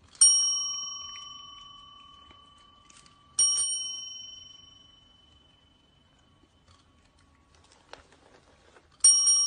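A chrome desk service bell tapped by a cat's paw, ringing three times: near the start, about three seconds in, and near the end. Each ring has a bright metallic ding that fades out over a couple of seconds.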